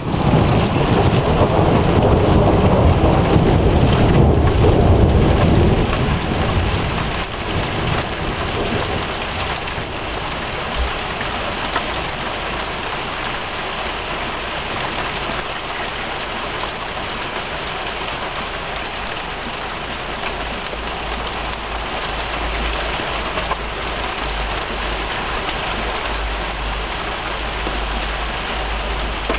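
Heavy rain falling steadily, with a long low rumble of thunder that dies away over the first six or seven seconds.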